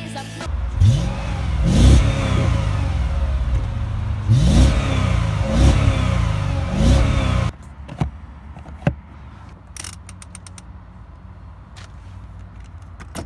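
Mercedes-Benz W210 E55 AMG's V8 revved while parked: five quick throttle blips, each rising and falling back to idle. About seven and a half seconds in it cuts abruptly to a much quieter idle with a few sharp clicks.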